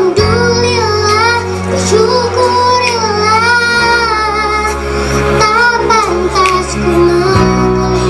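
Children singing a song with instrumental accompaniment; sustained bass notes under the melody change chord about four seconds in and again near the end.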